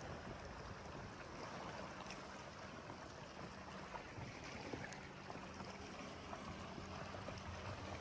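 Small outboard motor on a dinghy running steadily, with water rushing along the hull.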